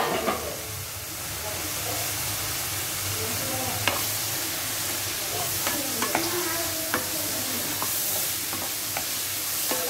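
Small bitter gourd (mithi pavakkai) and onion sizzling in a kadai while being stirred with a wooden spatula, which scrapes and knocks against the pan now and then.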